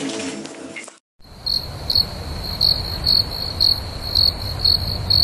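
Crickets chirping at night, short high-pitched chirps repeating about twice a second, starting about a second in after a brief cut, over a low steady rumble.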